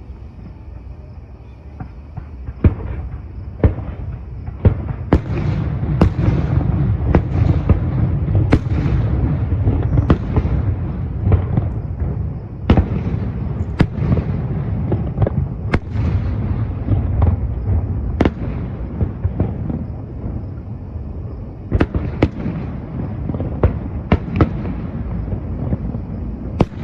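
Fireworks display: a rapid series of aerial shells bursting with sharp bangs over a continuous rumble. The bangs come thickest from about five seconds in, ease off briefly, then pick up again near the end.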